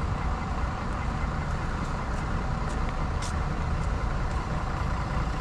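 Steady rumble of town traffic, a city bus and a car driving past, with engine and tyre noise.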